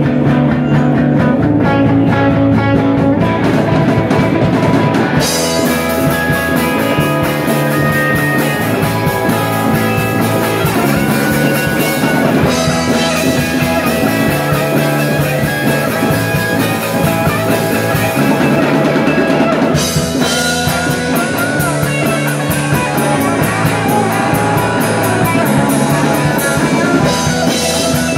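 Live rock band playing an instrumental passage: electric guitars over bass guitar and drum kit. The cymbals come in about five seconds in.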